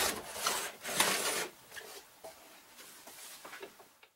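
A few light knocks and rubbing sounds as a jigsaw is handled on a wooden cutting guide, fading after about a second and a half to faint scattered clicks.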